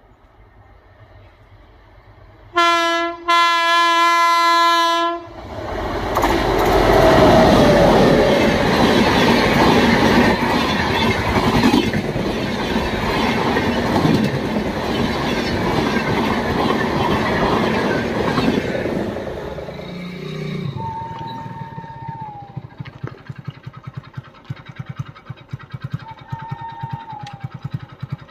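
An Indian Railways WAP7 electric locomotive sounds its horn, a short blast and then a longer one, and its train passes at speed: a loud rush of wheels and coaches with clickety-clack for about fourteen seconds, then fading. In the last third it is quieter, with brief faint tones and quick clicking of wheels.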